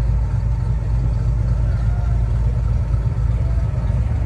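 Steady low mechanical rumble, like an engine or motor running at an even idle.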